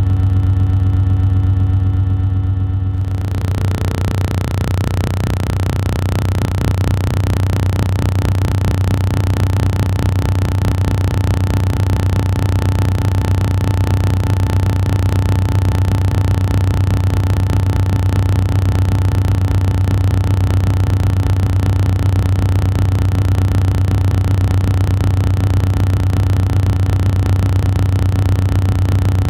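Loud, steady, low-pitched electric-sounding hum. About three seconds in, a constant harsh hiss joins it and runs alongside.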